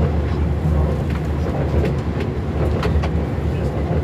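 MAN Schienenbus VT 28 railbus under way, heard from inside the driver's cab: a steady low drone from its diesel engine and running gear, with a few short clicks and rattles.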